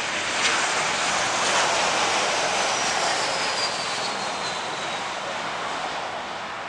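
Boeing 737-800 jet engines, loud as the airliner touches down and rolls out along the runway. A high fan whine falls in pitch in the middle, and the noise slowly fades toward the end.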